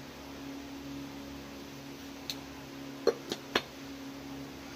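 Steady low hum with a few light clicks and taps of small objects being handled: a faint tick about two seconds in, then three quick clicks a little after three seconds.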